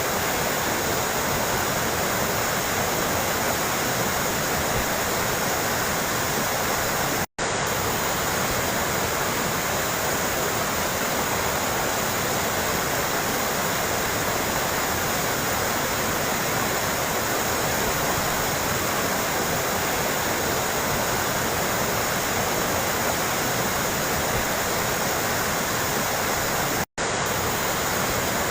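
Running water trickling steadily, an even splashing hiss. It cuts out for a split second twice, about seven seconds in and near the end.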